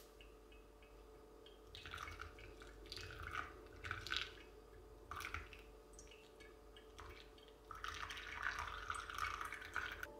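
Brewed coffee dripping and trickling into a Kalita glass coffee server in irregular spurts, running as a longer continuous trickle near the end.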